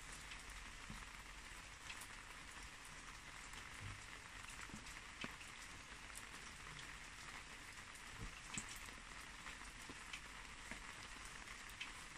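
Faint, steady light rain falling, with scattered single drops ticking.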